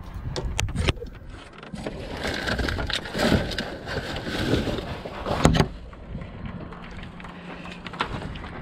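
Hands rummaging through trash in a dumpster: plastic bags and cardboard boxes rustling and crinkling, with scattered knocks and one loud knock about five and a half seconds in. It goes quieter after about six seconds.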